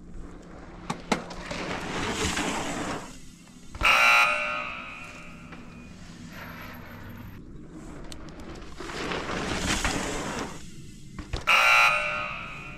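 A mountain bike coming over a jump twice. Each pass brings tyre noise on dirt, a brief lull while it is airborne, then a landing thump and a loud, short buzz from the rear freehub ratcheting as the rider coasts.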